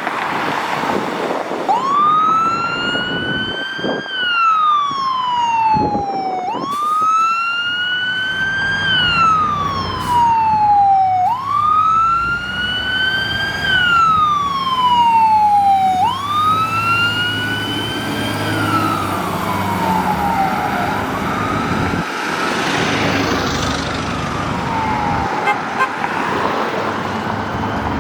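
Fire engine's wail siren sweeping up and down, each cycle rising quickly then falling slowly, about every five seconds. The truck's engine rumbles underneath through the middle, and in the last several seconds the siren turns smeared and less distinct.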